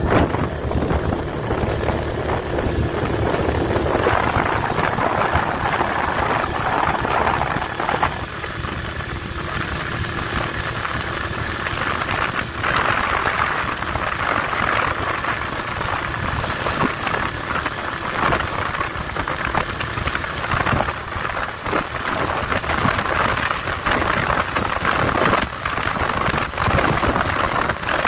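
A vehicle's engine running with steady road and wind noise, heard from on board while driving.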